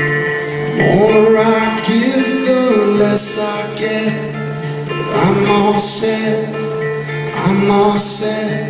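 Acoustic guitar strummed live, with a man singing over it in drawn-out phrases.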